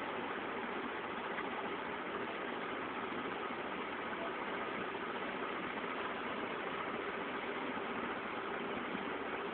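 A steady, unchanging mechanical drone with hiss.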